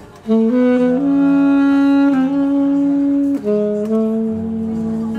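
Instrumental music: a melody of long held notes that steps up and down and drops lower about three seconds in, with a low bass line joining near the end.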